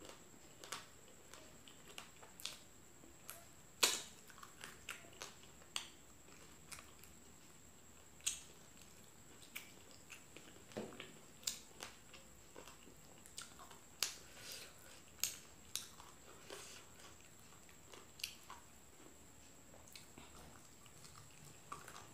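Close-up eating sounds of someone chewing fried chicken and rice: irregular wet mouth clicks and smacks, a few every second, the loudest about four seconds in.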